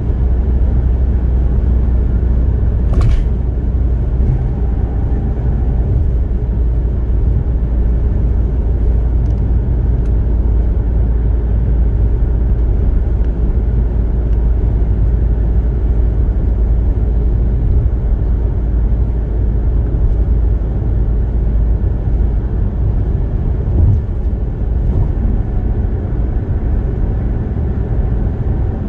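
Steady road and tyre rumble with engine hum from a car cruising at highway speed, heard from inside the cabin. A single sharp click sounds about three seconds in.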